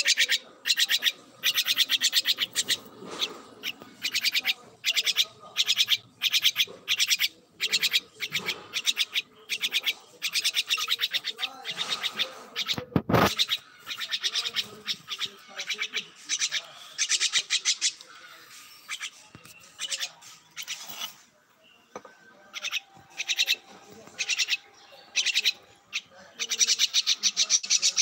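Jungle myna giving harsh, buzzy calls over and over in short bursts, each under a second long. A single sharp knock comes about halfway through.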